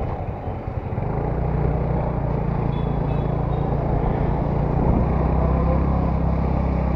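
Motor scooter's engine running steadily while being ridden, with road noise; its hum grows louder and holds steady about a second in.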